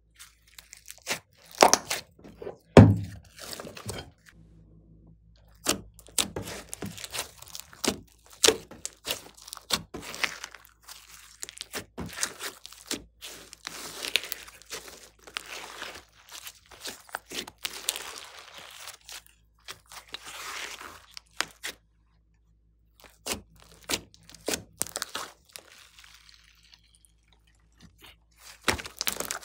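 Glossy slime mixed with clay and floam beads being stretched, folded and pressed by hand: irregular crunching and crackling pops, with a couple of short pauses near the end.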